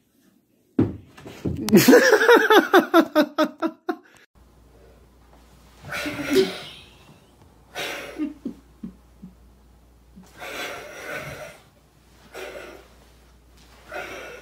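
A person laughing hard in a rapid run of pulses that falls in pitch over about three seconds, followed by several shorter, breathy bursts of sound.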